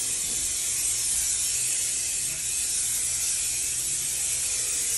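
Aerosol can of bathtub paint spraying in one long, unbroken hiss as paint is laid onto the tub.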